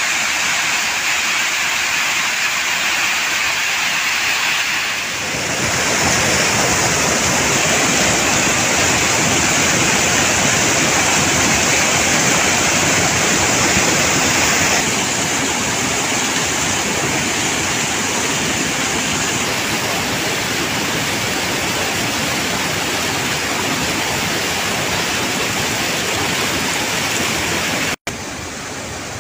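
Waterfall rushing: a loud, steady roar of falling water. Its tone shifts abruptly about 5 and 15 seconds in, and it drops out for an instant near the end.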